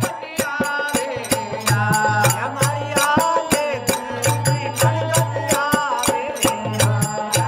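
Rajasthani folk bhajan: harmonium with a singing voice over a dholak, and small hand cymbals clicking in a steady quick beat.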